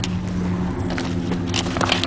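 A steady low mechanical hum, like a motor running, with scattered short clicks and scuffs.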